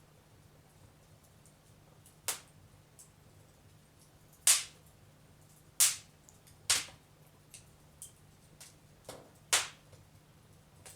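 Wood fire in a fireplace crackling, with about six loud sharp pops at irregular intervals and fainter ticks between them.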